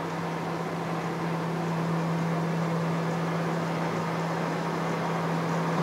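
Railway wheel lathe running, a steady machine hum over a rushing noise, growing slightly louder, as it turns a large locomotive wheel to take the bumps out of its tread.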